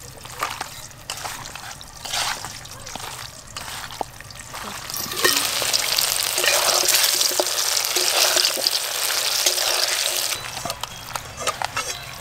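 Small whole new potatoes frying in hot oil in a kadai, a loud steady sizzle for about five seconds in the middle. Before and after it come wet squelches of chicken pieces being kneaded by hand with spice paste in a steel bowl.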